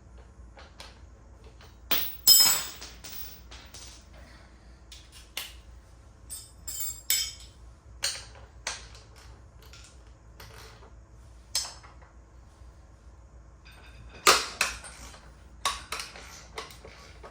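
Metal hand tools clinking and clanking in scattered, irregular knocks, with the loudest about two seconds in and again near the end: a socket and ratchet being handled to loosen a dirt bike's rear axle nut.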